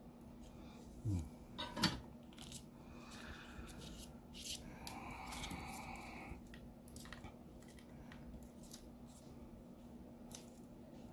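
Gloved hands handling the small parts of a chatterbox BiT-2, its circuit board, battery and plastic back case: light clicks, taps and scraping as the battery is fitted onto the case and the wires arranged, with two louder knocks a couple of seconds in. A faint steady hum lies underneath.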